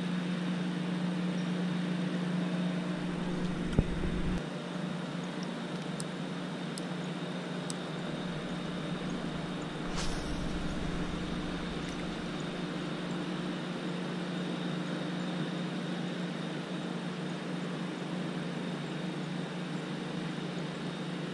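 A steady low motor hum over constant traffic-like background noise, with a few faint clicks and a small knock about four seconds in.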